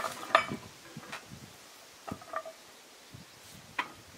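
Sparse metallic clinks and knocks of a steel lever bar and log turner rolling a large log on a chainsaw mill's steel track. There are two sharp clinks at the start, two more about two seconds in, and one near the end.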